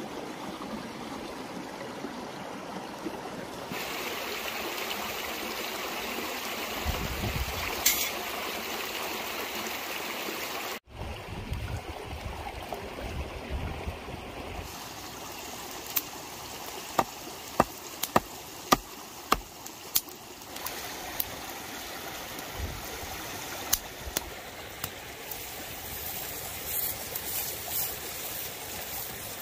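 Steady rushing of a nearby stream. About halfway through comes a cluster of sharp crackles from the wood fire under the cast iron pot, with a few more near the end.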